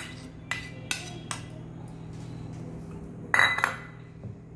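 A steel spoon clinking and scraping against a stainless-steel bowl as a wet spice paste is scraped off into it: a few light clinks in the first second and a half, then a louder ringing clink about three seconds in.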